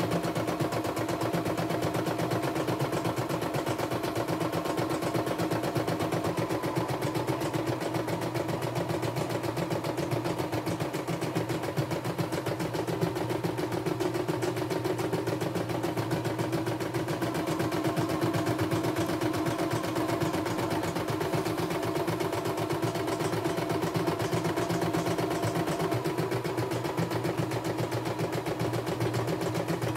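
CNY E960 computerized embroidery machine stitching a design: a steady motor hum under a rapid, even chatter of needle strokes.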